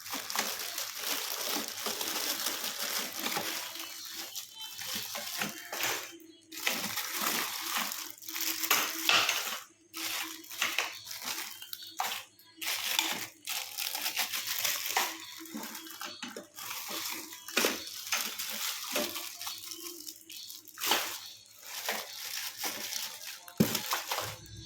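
Unpacking a boxed clothes-drying stand by hand: rustling and crinkling of packaging, with many short clicks and knocks as the parts are handled and set down.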